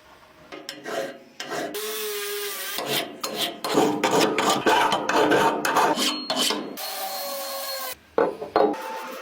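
Hand abrasive work on a part: a run of irregular rasping, scraping strokes, loudest in the middle, with a short pause near the end.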